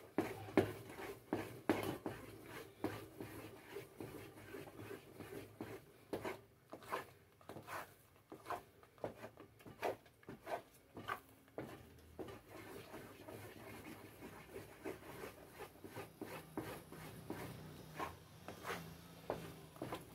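Wooden spoon stirring and scraping thick natilla around a non-stick pot: soft, uneven scraping strokes, about two a second.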